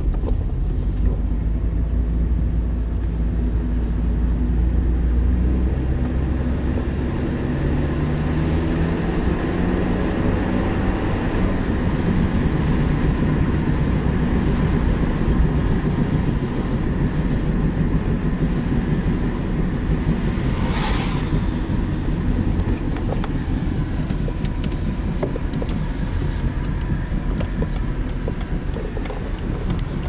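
Car engine and road noise heard from inside the cabin while driving, the engine note rising as the car picks up speed partway through. A short hiss a little past two-thirds of the way in.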